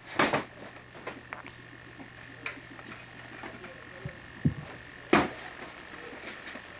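A boxing glove thuds into a hanging coat used as a punching bag just after the start. Then come a few soft knocks and rustles as a jacket and boxing gloves are handled, with one more sharp knock about five seconds in. A faint steady hum runs underneath.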